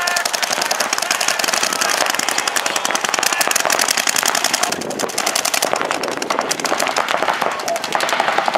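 Paintball markers firing in rapid, continuous strings, many shots a second, from more than one gun.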